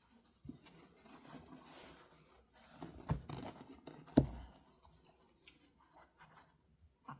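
Quiet rustling and rubbing of quilt fabric and thread during hand sewing, with two soft thuds about three and four seconds in, the second the loudest.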